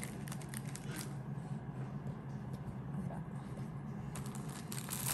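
Paper liner sheet in a chocolate box rustling and scraping as it is slid and lifted off, with short crackles near the start, about a second in and again near the end, over a steady low background hum.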